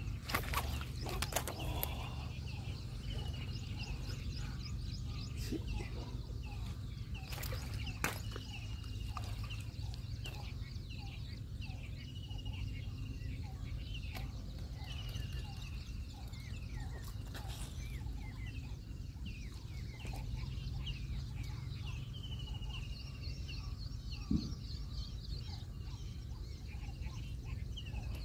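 Birds calling over and over with short, high, dipping chirps, over a steady low rumble, with a few sharp clicks.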